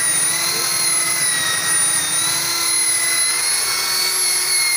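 Electric rotary car polisher running steadily with a high-pitched whine as its pad works over car paint; the pitch dips and rises slightly as the load on the pad changes.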